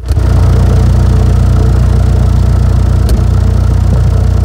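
15-inch SLAPZ Audio Oblivion D4 car subwoofer playing a 30 Hz test tone at high power from a 5,000-watt amp: a loud, steady, deep drone with a buzzy layer of overtones that starts suddenly. The tone is the frequency test used to measure the sub's impedance rise and wattage.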